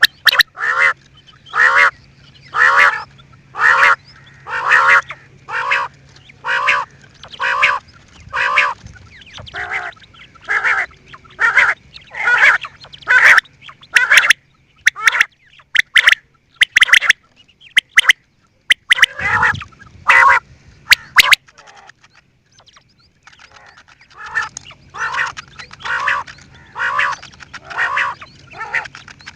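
Quail calling in a long, even series of short, harsh calls, a little more than one a second, with a break of about two seconds past the middle before the calls resume. A steady faint hum runs underneath.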